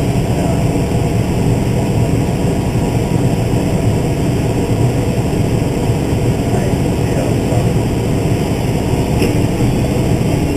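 Case IH Magnum 305 tractor's six-cylinder diesel engine running at a steady drone.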